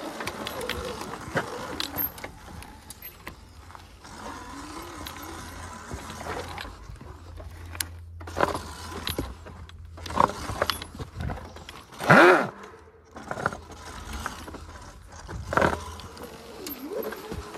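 Sur-Ron electric dirt bike riding over a rooty trail: the motor whines up and back down in pitch as the throttle is worked, loudest about twelve seconds in, over a steady low hum and constant rattling and knocking from the bike.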